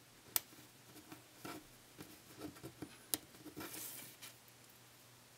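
Small plastic HO scale coupler parts being handled and fitted by hand: light clicks and taps, with two sharper clicks about half a second and about three seconds in, and a brief soft rustle near four seconds.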